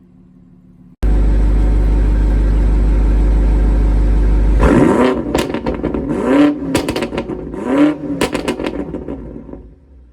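BMW engine with an M Performance exhaust comes in suddenly about a second in and runs at a loud, steady idle with a deep rumble. It is then blipped several times, each rev rising and falling in pitch with sharp crackles, before it dies back down near the end.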